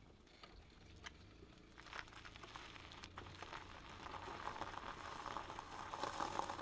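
Car tyres rolling slowly over loose gravel, a crunching crackle that grows louder over the last few seconds, with a faint low engine hum underneath.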